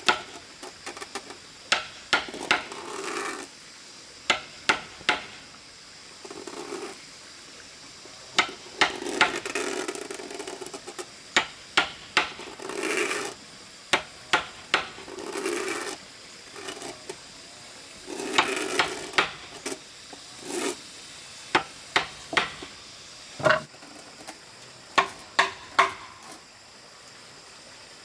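Hand tools working wood: sharp knocks, often two to four in quick succession, alternating with scraping strokes about a second long, like sawing or rasping timber.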